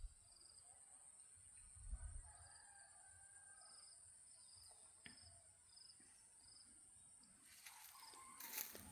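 Faint rooster crowing about two seconds in, over a steady high whine and short repeated high chirps. Rustling starts near the end.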